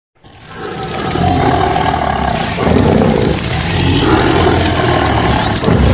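Tiger roar sound effect: a deep, continuous rumbling roar that fades in over the first second and then stays loud.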